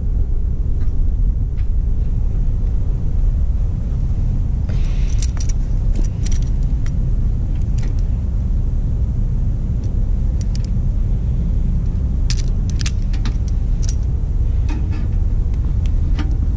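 Steady low rumble with scattered small clicks and rattles from hands working plastic crimp connectors, wires and a hand crimping tool, in clusters a few seconds apart.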